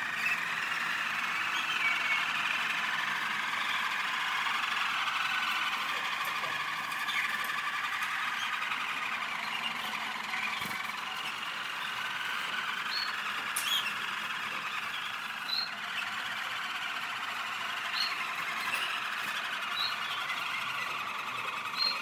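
Several German Roller canaries singing together: a continuous rolling, trilled song, with short high chirps breaking in now and then, more often in the second half.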